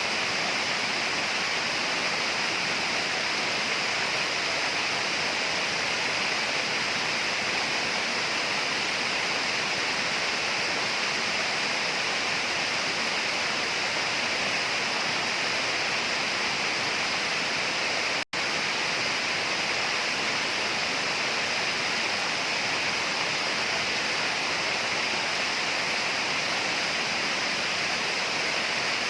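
Steady tropical rainforest ambience: an even, unbroken hiss strongest in the upper range, with a momentary cut to silence about two-thirds of the way through.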